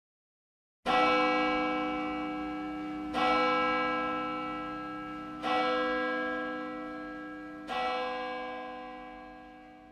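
A single church bell tolling four slow strokes, about two and a quarter seconds apart, each ringing on and fading before the next; it begins about a second in.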